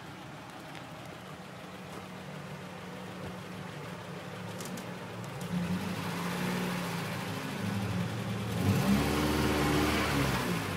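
Toyota 22RE 2.4-litre four-cylinder engine pulling under load as the lifted truck crawls forward, its front wheel rising. The engine grows louder about halfway through and is loudest near the end.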